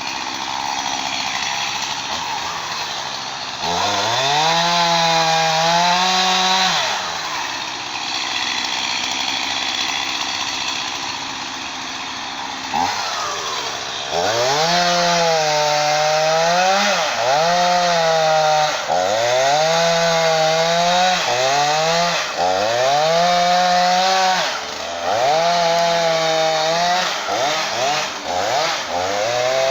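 Chainsaw engine revved up from a lower idle and held at high speed for about three seconds. After some ten seconds of lower running it is revved again and again, each rise in pitch lasting a second or two before dropping back.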